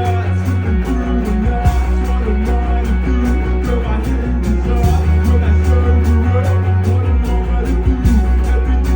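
A live rock band playing a psychedelic-leaning song: electric guitar lines over long held bass notes that change every couple of seconds, with drums keeping a steady beat.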